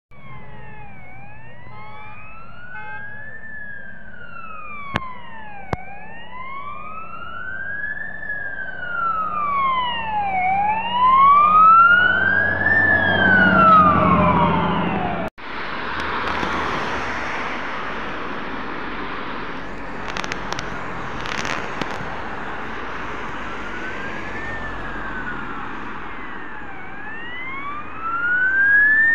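Scania fire engine siren wailing, slowly rising and falling. The truck's engine and tyres swell in as it drives past about 12–14 seconds in. After a sudden cut about halfway, the wail returns, faint at first and louder near the end as the fire engine approaches again.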